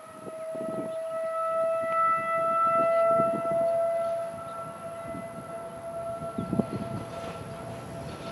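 Outdoor warning siren sounding a single steady tone after winding up. It swells louder in the first few seconds and fades about four seconds in. A few low thumps are heard alongside.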